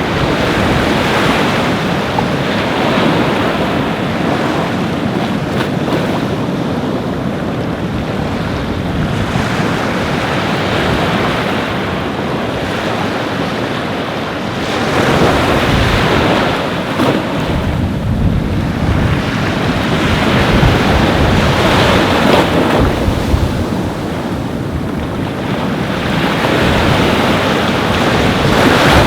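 Ocean surf breaking and washing up on a beach, swelling and easing every few seconds, with wind buffeting the microphone.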